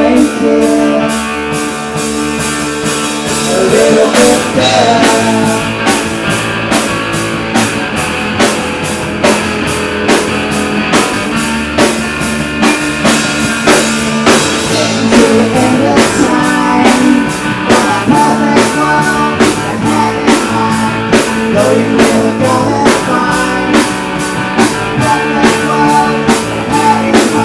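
Live rock band playing loudly: a drum kit keeps a steady beat under distorted electric guitar and bass guitar, with a singer's vocals at times.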